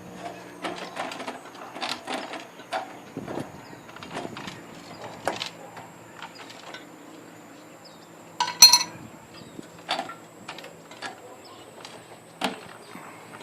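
Irregular knocks, clicks and rattles of a solar cooker being taken apart by hand, with one louder clatter about two thirds of the way through.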